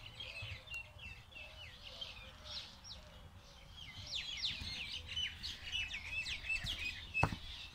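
Small birds chirping in a busy chorus of short high chirps and quick falling notes, thickest from about four seconds in. A single sharp knock near the end.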